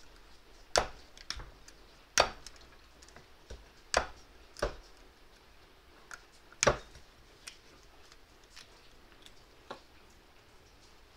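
Sharp metal clicks and knocks from a Toyota 2F smog pump being taken apart by hand with a small hand tool. There are five loud knocks in the first seven seconds, then a few fainter clicks.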